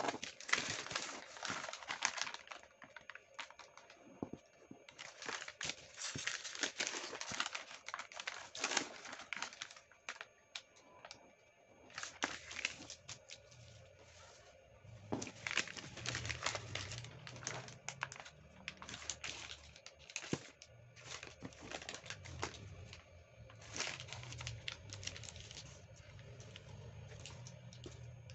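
Crinkled sheet of thin origami paper being pressed flat, smoothed and folded by hand. It crackles and rustles in bursts of a second or two, with short pauses between them.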